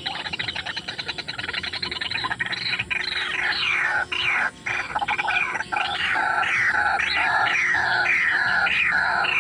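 White-breasted waterhen (ruak-ruak) calling: a fast chattering rattle for the first couple of seconds, then a run of loud repeated calls, about two a second, each falling in pitch.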